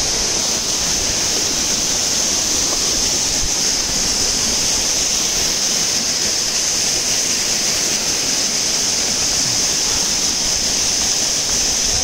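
Steady, loud rush of water from a waterfall, an even hiss with no breaks.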